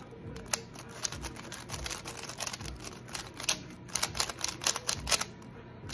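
Magnetic maglev 3x3 speedcube being turned quickly by hand: a run of irregular sharp plastic clicks and clacks as the layers turn and the magnets snap them into place, busiest near the end.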